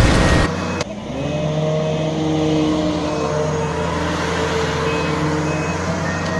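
Heavy earthmoving machine's diesel engine running steadily, with its pitch rising slightly about a second in. Short high reversing-alarm beeps sound now and then.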